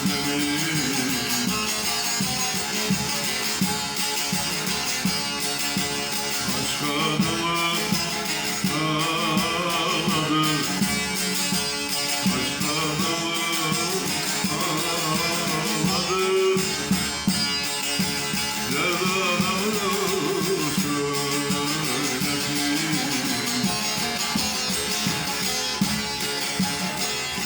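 Instrumental passage of a Turkish folk song (türkü): plucked strings carry a wavering, ornamented melody over a steady accompaniment.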